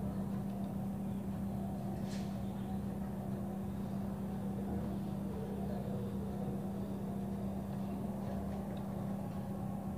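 A steady low hum with no change in pitch or level, and a faint click about two seconds in and a few softer ticks near the end.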